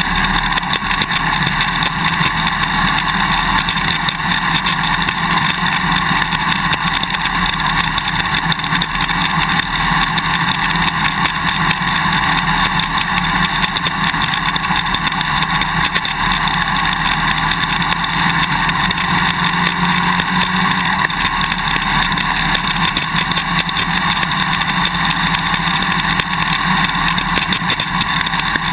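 Suzuki DRZ400 single-cylinder four-stroke engine running, heard from a camera on the swing arm, over a constant dense clicking from the GoPro's quick-release buckle vibrating in its mounting bracket because no vibration plug or tape is fitted.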